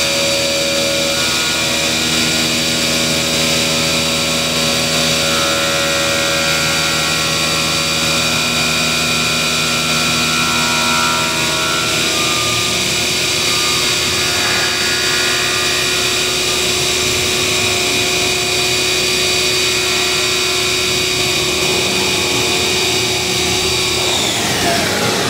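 CNC machine running and cutting metal: a steady high spindle whine over loud machining noise. Near the end the whine falls quickly in pitch as the spindle winds down.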